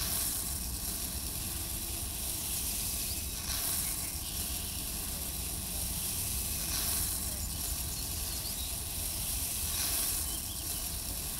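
A steady hiss with a few brief swells.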